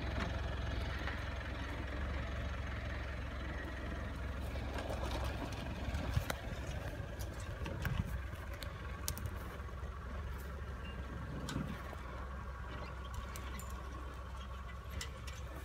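Mitsubishi Pajero Sport SUV's engine running at low revs as it crawls over uneven ground, a steady low rumble with a few faint clicks.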